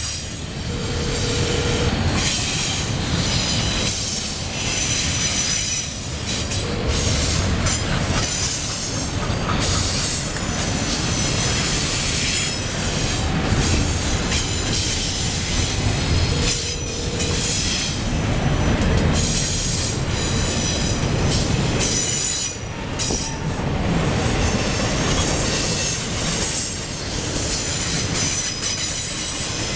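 Double-stack container well cars of a freight train rolling past close by: a loud, steady rumble and rattle of steel wheels on rail, with a short squeal now and then.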